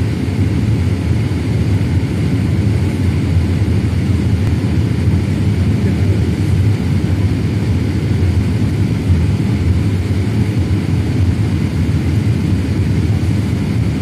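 Steady low rumble of a Boeing 787-8's engines and rushing air, heard inside the passenger cabin as the jet descends on approach.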